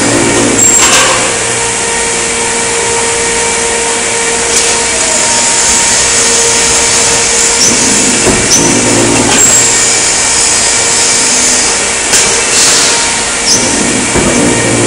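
Press brake running with a steady machine hum, swelling heavier as it makes a bend near the start, about eight seconds in and near the end. Sharp metallic clanks come in between as sheet-metal panels are handled.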